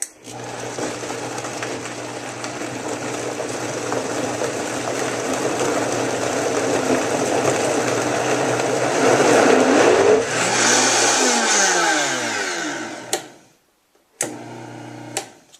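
Vitamix 5200 blender motor running on low speed, a steady hum with the blade churning the load and growing slightly louder. About ten seconds in it is switched off and winds down with a falling pitch. Near the end it is switched on again for about a second.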